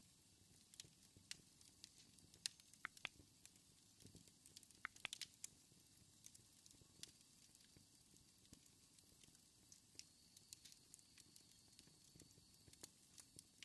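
Near silence, with faint scattered clicks and crackles over a low hiss.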